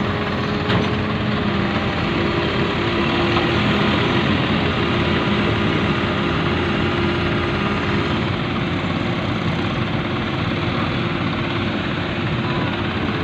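Heavy diesel engine of an excavator running steadily, a constant drone with an even pitch.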